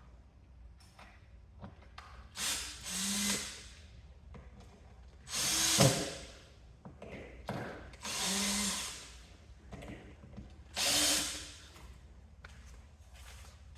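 Power drill-driver running in four short bursts of about a second each, driving the screws that fasten a strike plate and its stacked shim spacers to a door frame, with a sharp knock near the end of the second burst.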